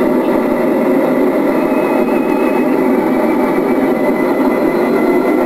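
Steady drone of a light propeller aircraft's engine and airflow, heard from inside the cockpit.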